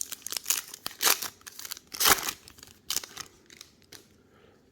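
Wrapper of a 2023 Bowman retail baseball card pack being torn open and crinkled: a quick run of crackling rips, the loudest about two seconds in, dying away near the end.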